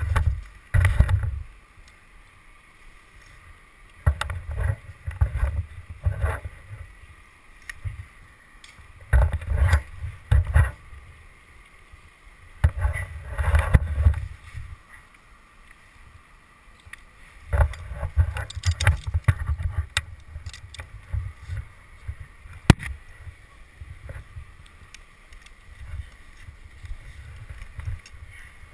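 A tree climber working up a poplar trunk on spikes: irregular bursts of scraping and rubbing every few seconds as the flip line, clothing and body move against the bark, with scattered sharp clicks, one louder than the rest about 23 seconds in.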